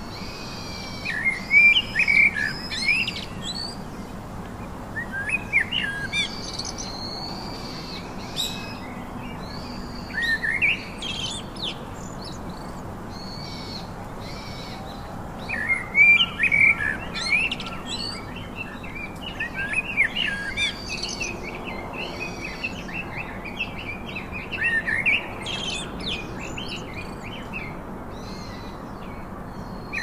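Eurasian blackbird singing: a series of short, varied phrases, each a second or two long, with pauses of a few seconds between them.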